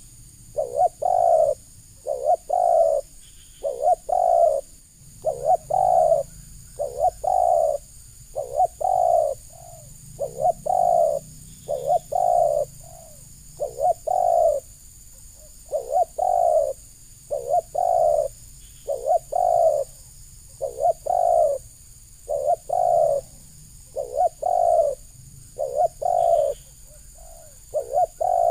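Spotted dove cooing over and over, a steady run of short low coos in groups of two or three, about one coo a second.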